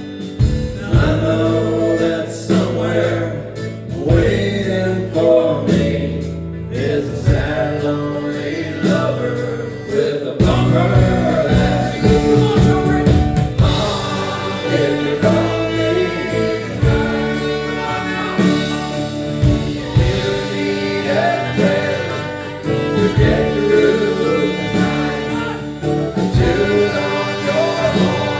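Live band performance with singing, loud and continuous.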